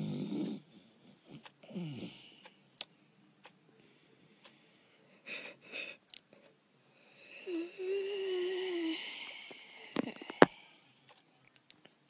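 A person snoring and wheezing in irregular, separate breaths, one of them with a short steady hum in the middle of the stretch. A couple of sharp clicks come about ten seconds in, the loudest sound here.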